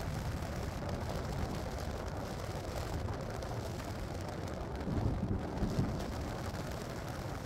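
Steady road and engine noise from a car moving at highway speed, heard from inside the cabin, with a low rumble swelling briefly about five seconds in.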